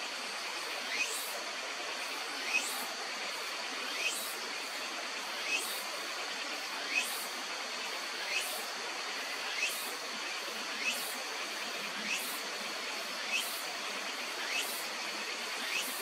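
Steady rush of stream water, with a short, quickly rising chirp repeating about every second and a half and a faint steady high-pitched tone above it.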